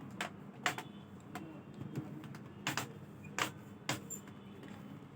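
Laptop keyboard keys clicking: about eight sharp, irregularly spaced clicks, two of them close together near the middle.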